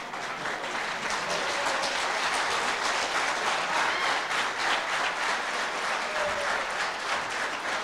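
Audience applauding with dense, even clapping.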